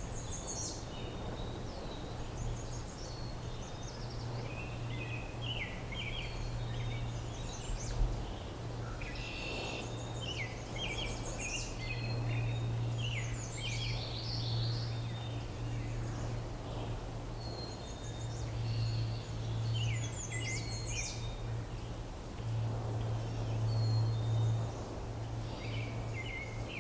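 Songbirds singing in short, repeated high phrases every few seconds over a steady low hum, with a single low thump about eight seconds in.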